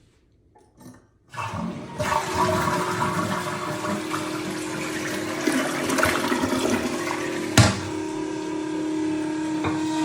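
Toilet flushing: a click, then rushing water from about a second and a half in. A steady humming or whistling tone grows under the water, the strange noise this toilet makes, and there is a sharp knock about seven and a half seconds in.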